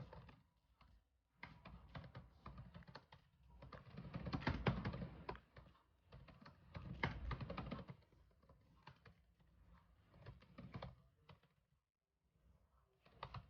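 Typing on a computer keyboard: runs of rapid key clicks in several bursts, with short pauses between them and a longer pause near the end.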